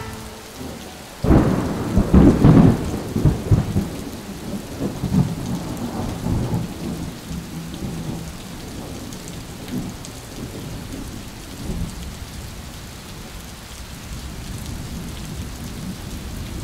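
Thunderstorm sound effect: a loud thunderclap breaks about a second in and rumbles for a few seconds, then settles into steady rain that slowly fades.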